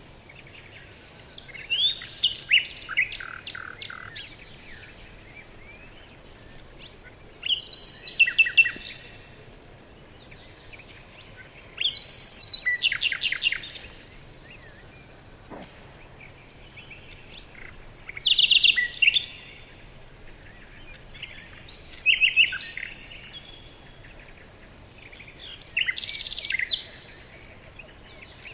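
A songbird singing in short bursts of rapid high chirps and trills, each phrase lasting one to two seconds and coming back about every four seconds.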